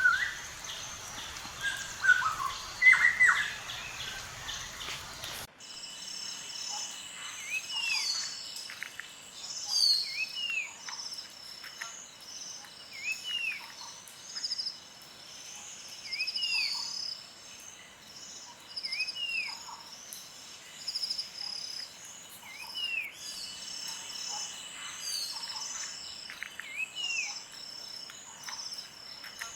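Forest ambience: birds calling, then an abrupt change about five seconds in to a dense chorus of high insect trilling and chirping, over which one bird repeats a short arched call about every three seconds.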